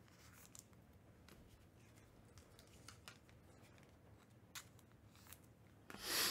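Quiet room with faint scattered rustles and small clicks of handling, then a brief louder rustle of cardboard and plastic packaging near the end as the next box of trading cards is picked up.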